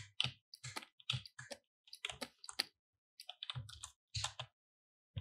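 Irregular light clicking and tapping of a computer keyboard and input devices, a quick uneven string of short clicks, some with a soft low knock.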